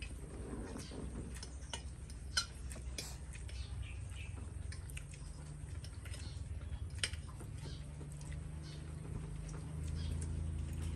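Several people eating pancit canton noodles: forks clicking and scraping on a plate, with small chewing and slurping noises and a couple of sharper clicks, over a steady low hum.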